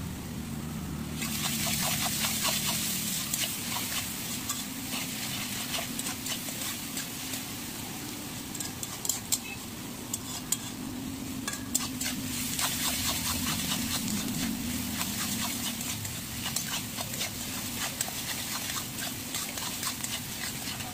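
Chopped vegetables sizzling in hot oil in a metal kadai, with a spatula scraping and clicking against the pan as they are stirred. The sizzle starts about a second in, under a steady low hum.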